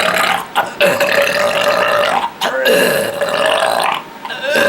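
A woman burping: a run of long, drawn-out belches, each lasting a second or more, with short breaks between them.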